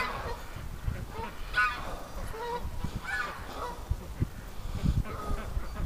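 Canada geese honking: several short honks a second or two apart.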